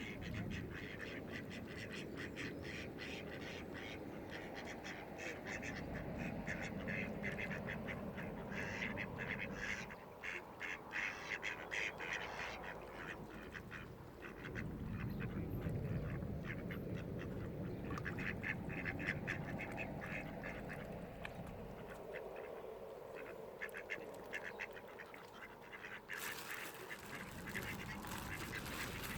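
Mallard ducks quacking in rapid runs of short calls, over a low rumble, with a spell of hissing noise near the end.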